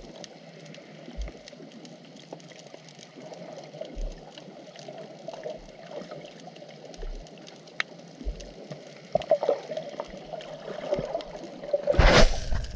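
Underwater ambience heard through a camera's waterproof housing: a steady churning hiss of agitated water with fine crackling and a dull low thump every few seconds. Near the end there is a loud scraping knock as something presses right against the housing.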